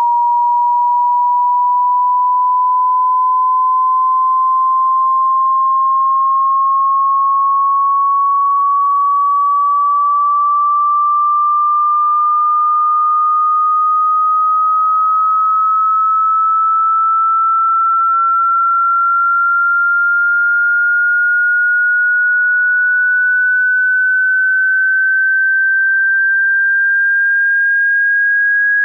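Pure sine-wave hearing-test tone sweeping slowly and steadily upward in pitch, rising a little less than an octave, at an even loudness.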